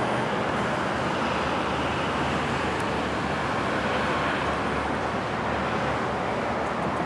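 Steady roar of road traffic, an even wash of tyre and engine noise with no single vehicle standing out.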